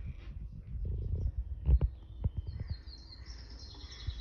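A few soft knocks and handling noises at the laptop, then birds chirping from a bird video playing through the laptop's speakers, starting about halfway through.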